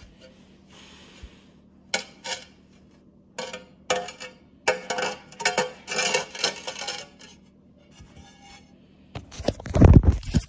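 Pieces of a freshly snapped tile knocking and scraping against each other as they are handled, in clusters of sharp clinks. Near the end, a loud, low rumbling thump, the loudest sound here.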